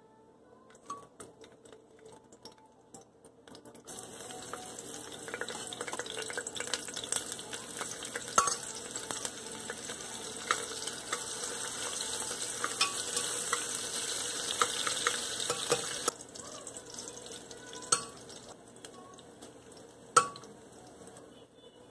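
Whole spices and chopped vegetables sizzling in hot oil in a stainless steel pot. The sizzle rises sharply about four seconds in, holds loud, and drops off about sixteen seconds in, with light clicks before it and a couple of sharp clinks of a steel spoon on the pot near the end.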